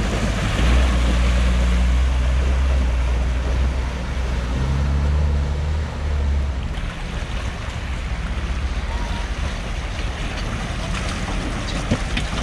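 A vehicle engine running steadily at low revs under rushing wind-like noise. The engine hum drops away about six seconds in, leaving the rushing noise.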